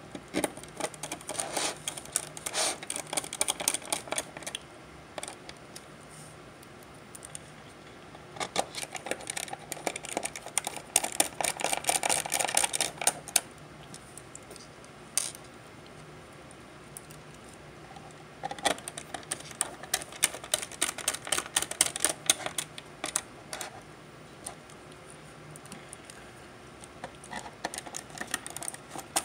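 Small hand screwdriver driving small screws into the metal cover plate of a BrightSign HD224 media player. It makes several bursts of rapid clicking, with short pauses between the screws.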